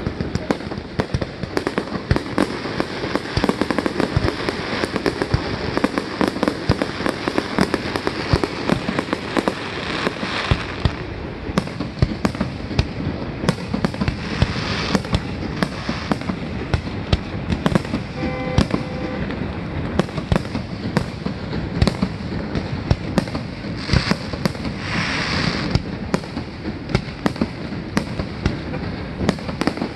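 Aerial fireworks display: a dense, continuous run of bangs and crackles from bursting shells, with sharper louder reports standing out now and then.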